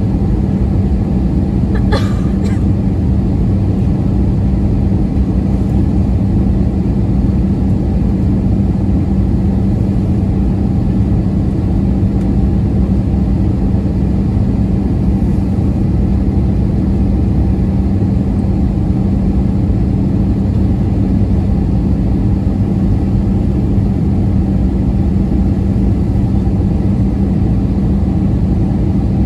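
Steady in-cabin drone of an Airbus A320-232 in flight, heard at a window seat beside the wing: its IAE V2500 turbofan and the airflow make a loud, even rumble with a steady low hum. There is a brief click about two seconds in.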